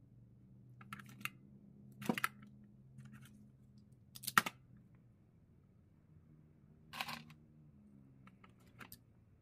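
Self-adjusting wire stripper snapping shut as it strips insulation off car-stereo harness wires: about six sharp clicks at uneven intervals, the loudest about four seconds in, over a faint steady low hum.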